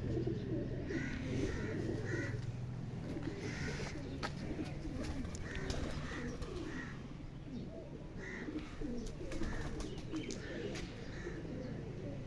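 Several domestic pigeons cooing at once in overlapping, wavering low calls, with short higher chirps coming every second or two and occasional sharp clicks.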